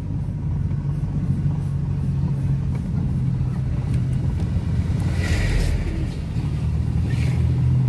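Engine and road noise inside a Suzuki Forsa's cabin as it drives at a steady pace: a continuous low drone. A brief louder rush of passing traffic comes about five seconds in, and a shorter one near seven seconds.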